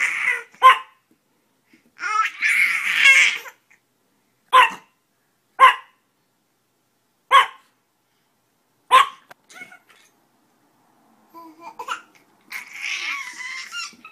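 A dog giving single sharp barks, about five in all, a second or two apart, answered by a baby babbling and laughing, with longer stretches of baby babble about two seconds in and near the end.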